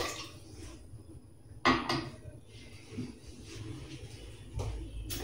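Kitchenware clatter: a sharp knock about one and a half seconds in, a lighter one just after, then faint handling noise.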